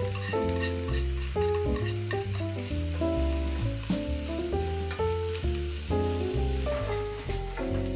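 Mushrooms and green pepper sizzling in a hot frying pan as they are tipped in from a wooden board and stirred with long cooking chopsticks, with a few light clicks of the chopsticks on the pan. Background music with a steady bass line plays over it.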